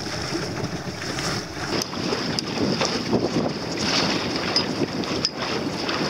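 Wind buffeting the microphone over water rushing and splashing along the hull of a small sailboat under sail, with a few sharp ticks.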